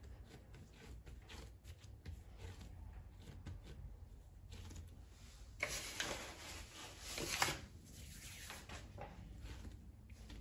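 Kitchen handling sounds from food preparation: scattered soft taps and rubbing, with a louder rustling scrape lasting about two seconds just past the middle.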